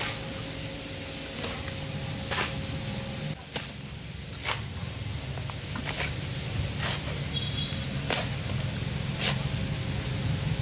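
Shovel scooping wet cement mortar and tipping it into a metal wheelbarrow: about nine short, sharp scrapes, roughly one a second, over a steady low hum.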